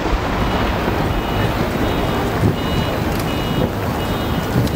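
Lull between firework bursts at a fireworks display: steady background noise with a few faint pops, and a faint high beeping repeating in short bursts through the middle.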